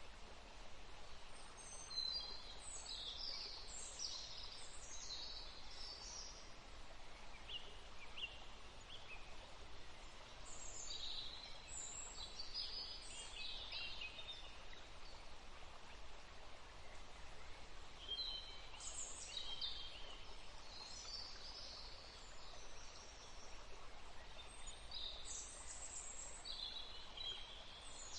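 Forest birds chirping and calling in four bouts of quick high notes, over a steady background hiss.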